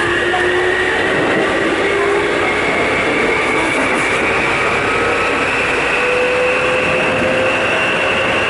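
Running noise of a Keikyu 800 series electric train, heard from the floor above a bogie of car Deha 818-6. The wheel and track rumble is steady, and the motor and gear whine rises slowly in pitch as the train gathers speed. This set is known for an unusual noise when accelerating and braking.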